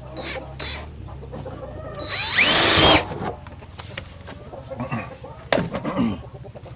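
Cordless drill boring an 11/32-inch hole through the wall of a plastic 55-gallon drum, running for about a second with its pitch rising and then falling. Chickens cluck a couple of times near the end.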